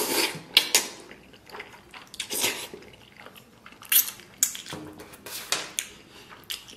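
Close-miked wet chewing and lip-smacking on a piece of stewed pig's tail: irregular sticky squelches and sharp smacks, a few louder ones scattered through.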